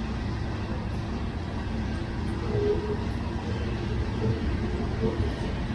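Covered hopper cars of a freight train rolling slowly past: a steady low rumble of steel wheels on rail, with a few short squeals from the wheels.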